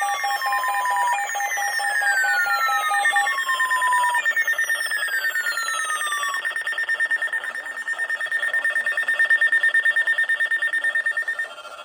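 Several weather alert radios sounding their alarms at once for an incoming severe thunderstorm warning. Repeated falling siren sweeps, about one every three seconds, stop a little past halfway. A pulsing beep drops out about three seconds in. A steady, rapidly pulsing high tone carries on and cuts off just before the end.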